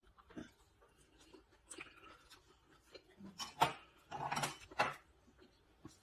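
Tableware at a meal: scattered light clicks and scrapes of utensils against dishes, with a sharper clack about three and a half seconds in and a short rustling burst just after it.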